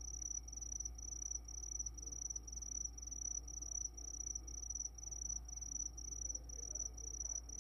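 Cricket chirping: an even, high chirp repeated about twice a second that starts and stops abruptly, like an added cricket sound effect filling a silent pause.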